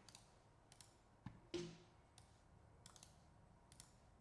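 Faint scattered clicks of a computer mouse selecting and deleting image files, one slightly louder click about one and a half seconds in.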